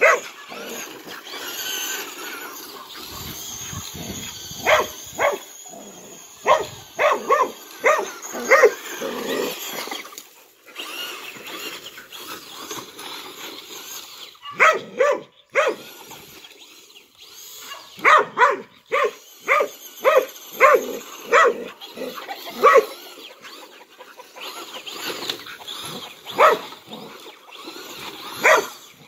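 Dog barking excitedly in quick runs of short barks, several a second, with pauses between the runs while it chases a remote-control car. In the gaps there is a fainter whir, fitting the car's small electric motor.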